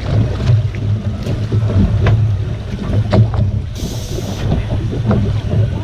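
Offshore fishing boat's engine running with a steady low hum, wind on the microphone, and scattered light knocks; a short hiss about four seconds in.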